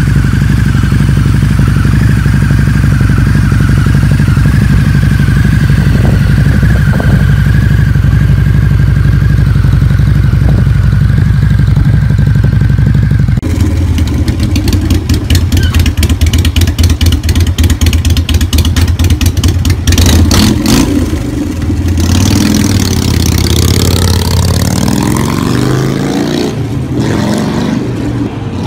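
Harley-Davidson V-twin motorcycle engine idling steadily. Then, about halfway through, a second Harley V-twin runs with a rough, pulsing exhaust note, is revved, and rides away.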